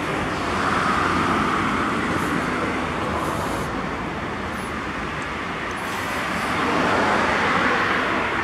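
Road traffic noise from passing cars, a steady hiss of tyres and engines that swells about a second in and again near the end.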